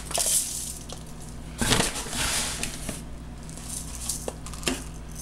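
Dry chick starter crumbles being poured from a scoop into a measuring cup and down into a metal stockpot of oats and cornmeal: a sandy, rattling pour that comes in a few short surges, with light knocks of the cups.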